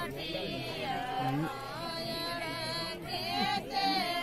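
Voices singing a devotional song in long, held notes that bend in pitch.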